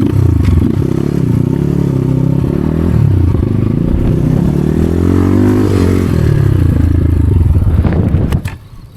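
Motorcycle engine running under riding load, its pitch rising and falling as the revs change, with some rattling. The engine sound drops away sharply near the end.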